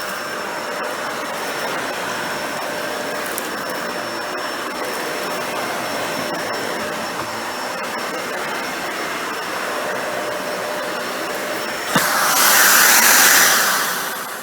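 Dyson Ball Animal 2 upright vacuum (model UP20) running steadily while vacuuming a low pile area rug. About twelve seconds in there is a click, and the rush of air becomes louder and hissier for a couple of seconds before dropping off at the end.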